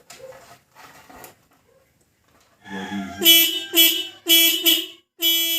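Suzuki Smash motorcycle's electric horn beeping four times, short blasts about half a second apart with the last a little longer, as the freshly wired horn is tested and works. Faint rustling handling noises come first.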